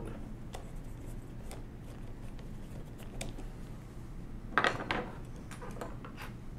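Small metal hand tools handled on a workbench: faint scattered clicks, then a brief, louder clatter about four and a half seconds in as a screwdriver is set down among pliers and other tools.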